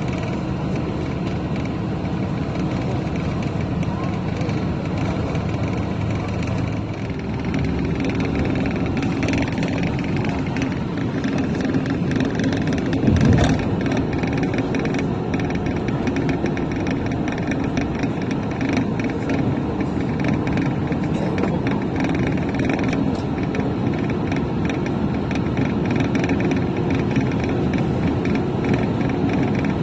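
Steady road vehicle running noise, an even rumble and hiss that carries on throughout, with a brief louder bump about 13 seconds in.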